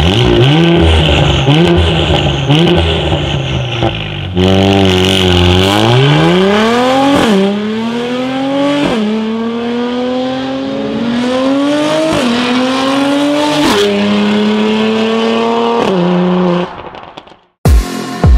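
Mercedes-AMG GLC 43's twin-turbo V6 through an aftermarket valved Fi Exhaust: a few quick rev blips, then a hard acceleration with the pitch climbing and dropping back at four upshifts. It holds at a steady pitch before fading away near the end.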